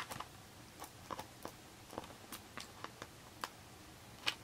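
Plastic Blu-ray case and its clear plastic sleeve handled in the hands: about a dozen faint, irregular clicks and crinkles.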